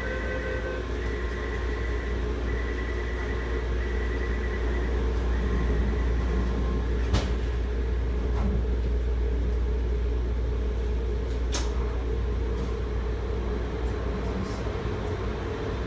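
Steady low rumble and hum inside the front car of a rubber-tyred Taipei Metro Wenhu line train standing at a station. A few faint high tones sound in the first few seconds, and there are three or four sharp clicks partway through.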